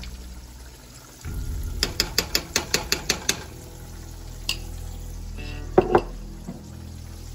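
A utensil clicking rapidly against a cooking pot: about nine quick clicks in a second and a half, then a single click and two louder ringing clinks of metal on the pot or jar. Under them is the steady sizzle of squash slices frying in oil in a skillet.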